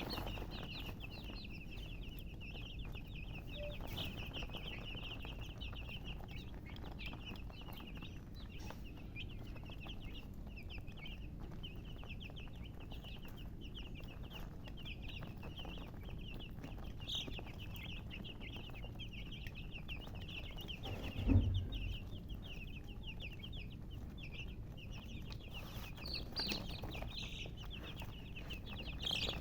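Many baby chicks peeping together without pause, a dense chatter of rapid high peeps. A single low thump about two-thirds of the way through.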